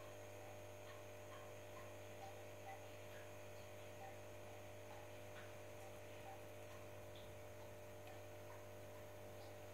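Near silence with a faint, steady electrical hum and scattered faint ticks.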